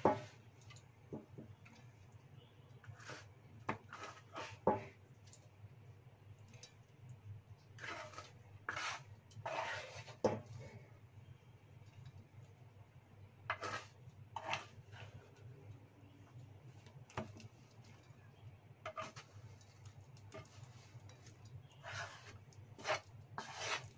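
Metal spatula scraping and knocking against a wok as a stir-fry is served out onto a plate: irregular scrapes and clinks, with longer scraping strokes around the middle and near the end.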